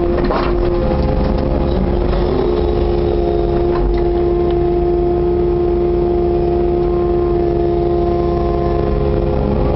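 Kubota KX080-4 excavator's diesel engine and hydraulics running steadily while working, with a steady whine over the engine note, heard from inside the cab. A few knocks in the first half second as the bucket empties into the dumper.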